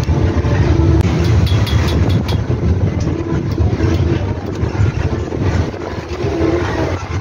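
Nissan Diesel CB87L bus's diesel engine and 'ngorok' (snoring) exhaust running steadily under way, a deep low rumble heard from the rear seats of the cabin, with a few sharp clicks about one to two seconds in.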